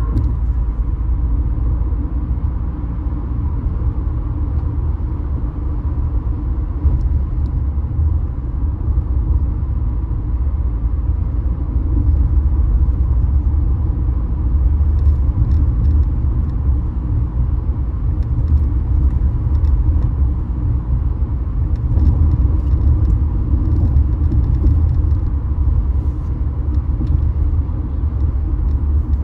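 Car driving along a road: a steady low rumble of tyre and engine noise.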